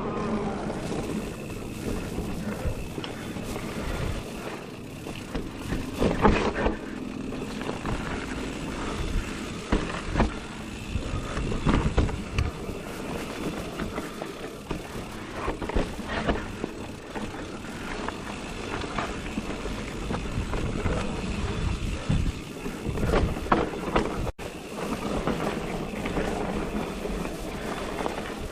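Giant Reign E+ electric mountain bike being ridden over a rough trail: steady tyre and wind noise, broken by frequent knocks and rattles from the bike as it hits bumps.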